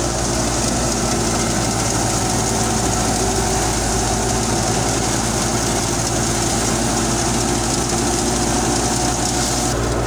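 Tractor-driven wheat thresher running steadily, powered by a Belarus 510 tractor: a constant engine drone under a strong high hiss. The hiss drops away near the end.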